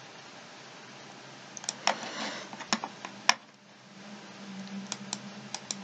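Scattered sharp clicks of a computer mouse and keyboard, a cluster about two seconds in and a few more near the end.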